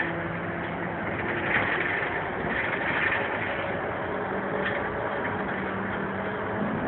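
City bus driving, heard from inside the cabin at the front: engine running under steady road noise, its low hum fading about a second in and coming back past the middle.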